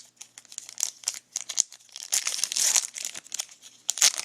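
Foil wrapper of a 2012 Topps Heritage baseball card pack being crinkled and torn open. It comes as irregular crackles, densest about halfway through, with a sharp rustle near the end.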